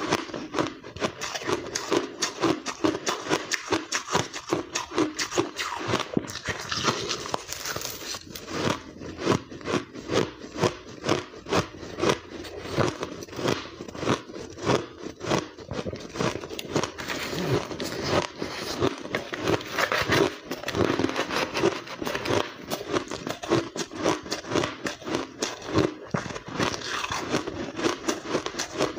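Close-up biting and chewing of blender-crushed white ice: a quick, continuous run of crisp crunches, several a second.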